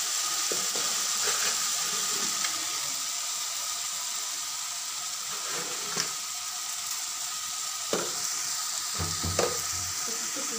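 Chopped onions and tomatoes sizzling in hot oil in a kadai, a steady frying hiss as the masala base cooks down, with a few light clicks partway through.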